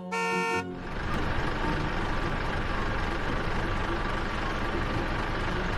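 A short chime, then a steady rumbling vehicle noise as the toy pumpkin carriage drives off.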